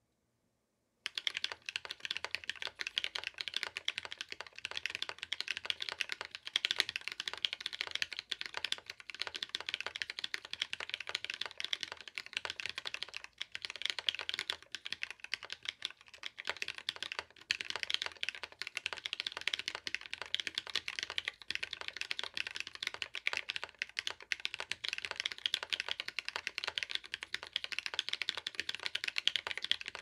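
Continuous fast typing on a Sneakbox AVA custom mechanical keyboard with a brass plate, case foam, lubed and filmed Tecsee Ice Candy switches and ePBT keycaps: a dense, unbroken run of key clacks that starts about a second in.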